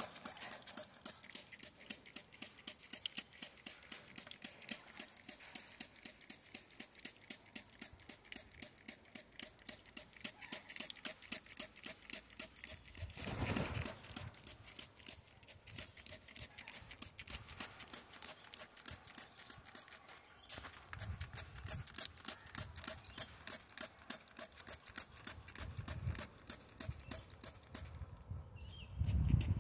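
Plastic trigger spray bottle pumped over and over in a steady rhythm, about three squirts a second, each a short hiss of mist. A louder rush of noise comes about halfway and again near the end.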